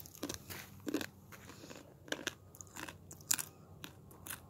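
Dry, uncooked instant noodles being bitten and chewed close to the microphone: a run of irregular crisp crunches.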